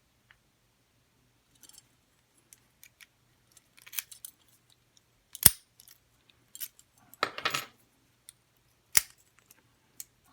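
Small metallic clicks and rattles of a brass padlock and its key being handled, with a few sharper clicks, the loudest about halfway through and a short rattling cluster soon after.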